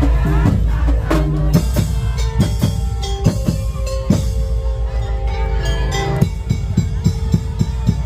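Madurese tong-tong (daul) percussion ensemble playing loudly: drums and wood-block knocks in a quick rhythm over held melodic tones.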